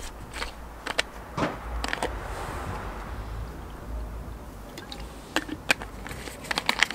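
A plastic bottle of methylated spirit handled at a brass spirit burner: scattered light clicks and taps, more of them near the end, over a steady low rumble.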